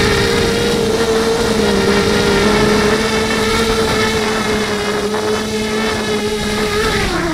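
FPV racing quadcopter's electric motors and propellers whining at a steady throttle, heard from the camera on board, over a rush of air. Near the end the pitch starts to fall as the throttle comes off.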